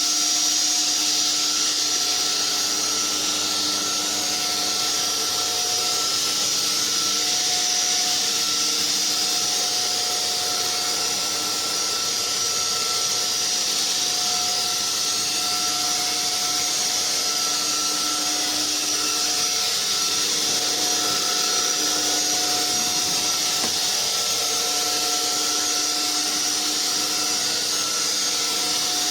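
Anyson cordless stick vacuum cleaner running steadily, with a high-pitched motor whine.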